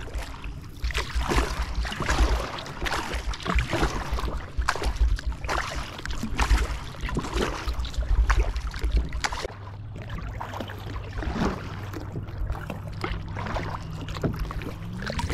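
Double-bladed kayak paddle strokes dipping and splashing in calm lake water, about one stroke a second. A low rumble underlies the first two-thirds, and a low steady hum comes in about two-thirds of the way through.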